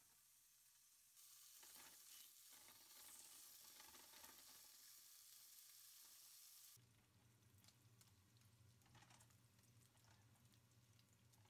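Bacon chunks sizzling faintly in a skillet as a silicone spatula stirs them. The high sizzle gets louder about a second in, then drops suddenly at about seven seconds to a quieter crackle of faint ticks over a low hum.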